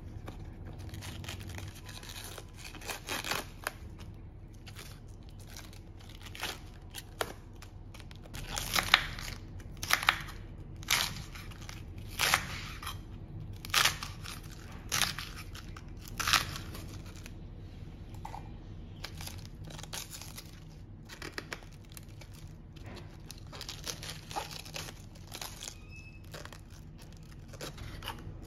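Fresh green cabbage being handled and torn, its crisp leaves crinkling, then a kitchen knife cutting through cabbage leaves onto a wooden chopping board. Sharp, crunchy cuts come about once a second through the middle, and softer cuts and rustles follow.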